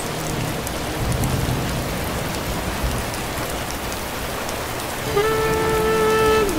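Steady rain falling on a wet street. About five seconds in, a saxophone comes in with one long held note.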